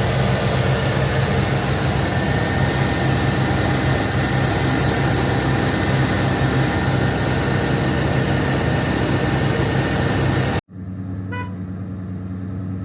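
1997 Ford F-250 HD pickup's engine idling steadily in park, loud and close, for the automatic transmission's fluid-level check. About ten seconds in the sound cuts off abruptly to a quieter, steady engine hum.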